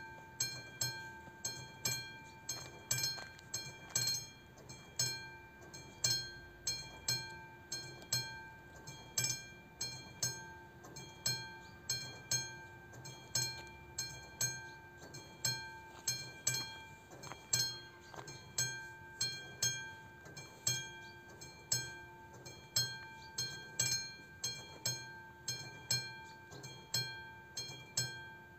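AŽD 71 level-crossing warning signal's bell ringing steadily at about two strikes a second, each strike ringing out briefly. It warns that the crossing is closed for an approaching train.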